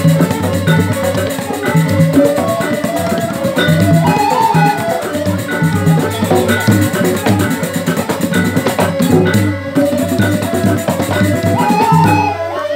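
Balinese gambelan suling ensemble playing: bamboo suling flutes carry a melody over a pair of hand-struck kendang drums and ringing metal percussion.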